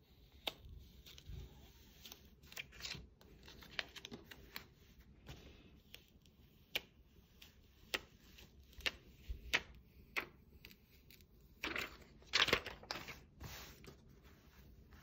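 Light handling sounds of heat transfer vinyl being worked by hand: irregular small clicks, scratches and short peeling or tearing rasps, with a louder rasping stretch about twelve seconds in.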